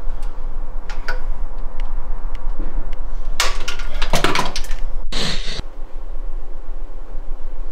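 A steady low hum with a few faint clicks. About three and a half seconds in comes a second or so of loud crackling clatter. It breaks off abruptly, and a short noisy burst follows.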